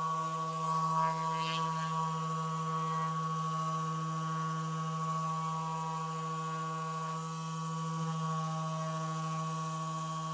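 Handheld electric massager running with a steady, even hum.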